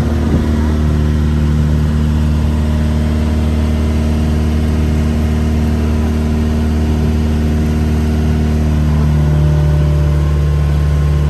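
Boat engine running steadily at a constant speed, with a slight change in its note about nine seconds in.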